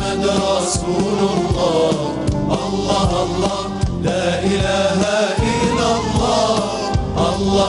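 Male vocal ensemble singing an Algerian religious chant (inshad) together, backed by a band with a steady beat.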